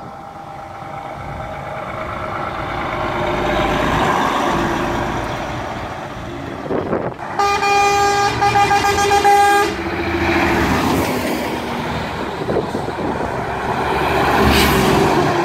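Diesel truck engines running as a line of lorry tractor units drives past, swelling as each one goes by. About halfway through, a vehicle horn sounds one steady note for about two and a half seconds.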